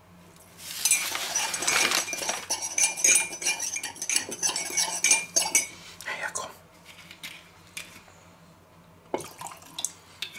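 Metal teaspoon stirring brown cane sugar into rum in a ceramic mug to dissolve it: a quick, dense run of ringing clinks against the mug's sides that stops about halfway through. A few light knocks and clicks follow as packets and bottles are handled.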